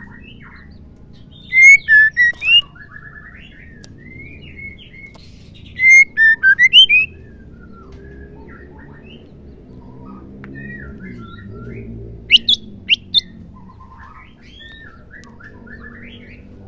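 Female white-rumped shama calling: soft twittering chirps and short gliding notes throughout, broken by loud clear whistled phrases about two and six seconds in and a few sharp high notes around twelve to thirteen seconds.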